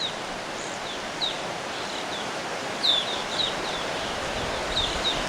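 Evening grosbeaks calling: a scattered series of short, high chirps, about a dozen in all, over a steady background hiss.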